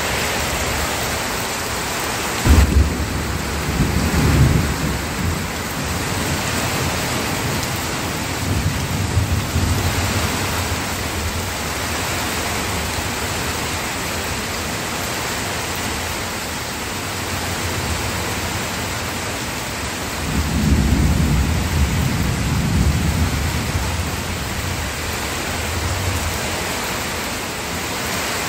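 Steady rain with thunder. A roll of thunder starts suddenly about three seconds in and rumbles for a few seconds, and a second, longer rumble comes about twenty seconds in.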